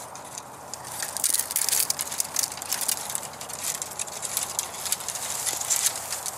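Dry brush and thin branches rustling and crackling as they are gripped and pulled by hand, a quick irregular run of small cracks and snaps.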